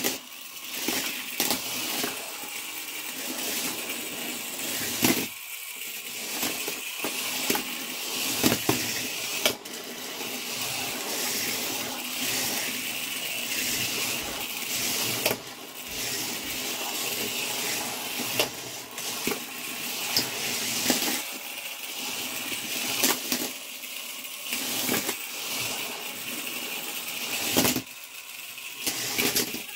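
Small electric motors of Hexbug BattleBots toy robots whining steadily as they drive, with frequent plastic knocks and clatters as the robots ram each other and the arena walls.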